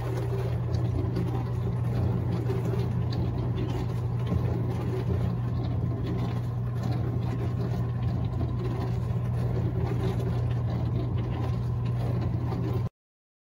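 Steady low machine hum of a running motor, ending abruptly about a second before the end.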